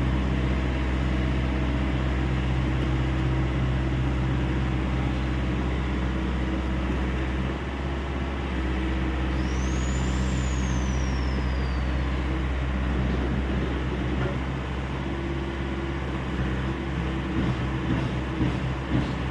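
Hyundai 85A Smart excavator's diesel engine running steadily while working. A faint high whine rises and then falls about ten seconds in.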